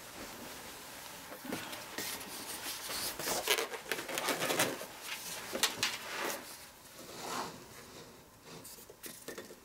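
Irregular rustling and knocking from someone moving about and handling things, with a few sharp clicks. It is busiest in the middle and dies down near the end.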